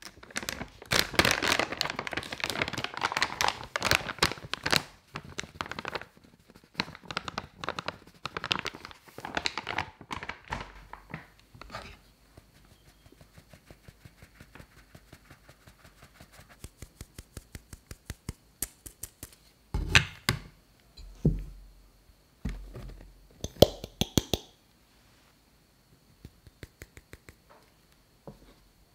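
All-purpose flour poured from a paper bag into a stainless steel mesh sieve, with the bag crinkling and rustling, then the sieve tapped to sift it, giving an even run of soft ticks. Near the end come a few dull thuds as corn starch is tipped into the sieve from a glass jar.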